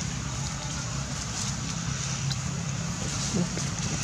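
A steady low mechanical hum, like an engine running, under a constant hiss, with a few faint clicks.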